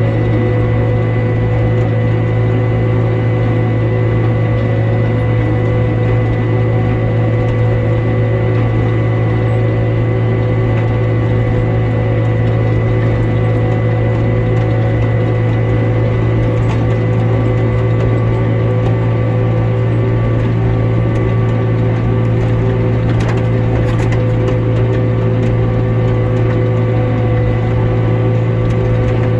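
Farm tractor and its machinery running steadily, a constant low drone with a thin steady gear whine over it.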